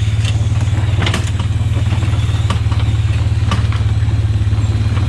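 A vehicle engine running steadily as a low, fast-pulsing drone, with scattered light clicks and rattles.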